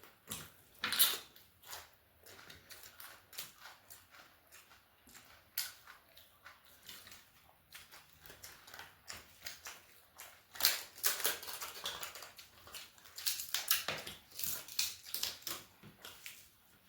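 Close-miked eating: chewing with crisp, crackling crunches, which come thickest about a second in and again through the second half.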